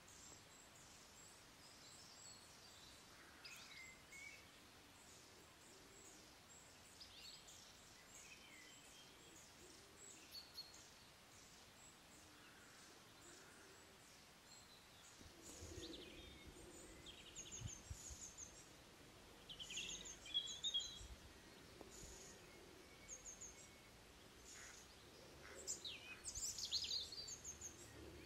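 Faint birdsong: scattered chirps and short whistled calls from small birds. A low background rumble comes in about halfway, and the calling grows busier near the end.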